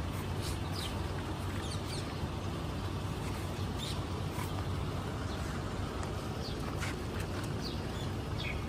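Outdoor background of a steady low hum, with small birds chirping briefly now and then.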